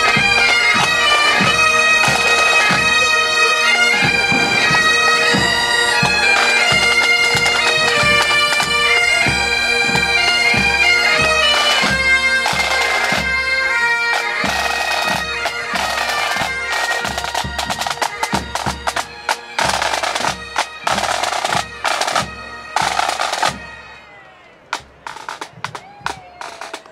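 A pipe band marching: Great Highland bagpipes play a tune over their steady drones, with snare and bass drums keeping a march beat of about two strokes a second. About halfway the pipes fall away and the drums play on alone, growing sparser and fainter near the end.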